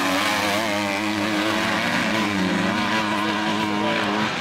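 Several 250 cc four-stroke motocross bikes racing through a turn, their engines revving up and down as the riders work the throttle.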